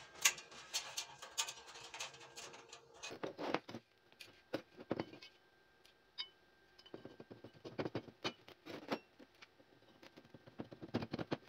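Steel pipe and square-tube pieces clinking and knocking as they are handled and fitted together, in scattered clusters of short taps.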